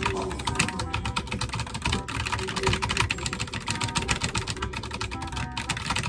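Computer keyboard typed on in rapid-fire bursts, a dense run of fast keystroke clicks like machine-gun fire.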